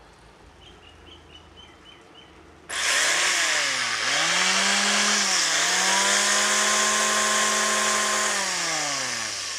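JK electric hand planer switched on about a quarter of the way in: the motor and belt-driven cutter drum run up loudly with a whine, dip in pitch briefly twice, run steady, then wind down with falling pitch near the end. It is a test run after its seized bearing was replaced, and it now spins freely.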